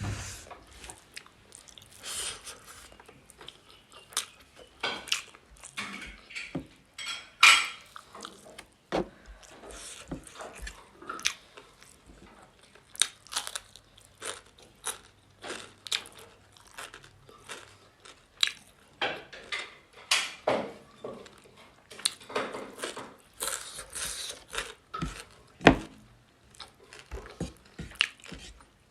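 Close-miked chewing and crunching of a pork-and-rice meal, with wet mouth smacks and occasional clinks of dishes, in an irregular run of short sounds. Two sharper, louder clicks stand out, about a quarter of the way in and near the end.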